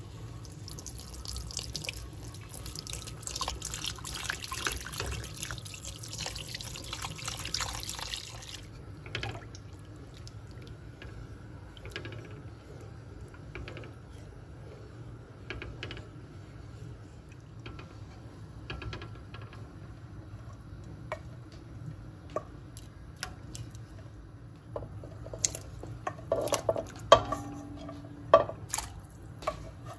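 Water pouring steadily into a soup pot as a wooden spoon stirs, for about the first eight seconds. Then quieter stirring and scraping in the pot, with several louder knocks near the end.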